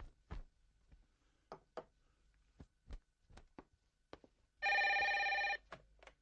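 Corded landline telephone ringing once, a ring about a second long, after several seconds of scattered light clicks and knocks. A couple of clicks follow the ring as the handset is picked up.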